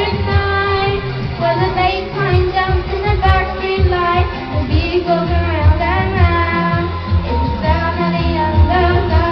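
Pop music with a female voice singing a melody over a steady bass beat.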